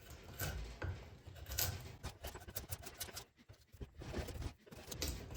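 Draw knife pushed along a juniper handle blank, shaving off wood in short, irregular scraping strokes with small clicks, with a brief pause a little past halfway.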